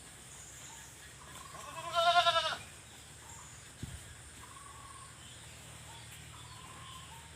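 A goat bleats once, a loud, wavering call lasting under a second about two seconds in.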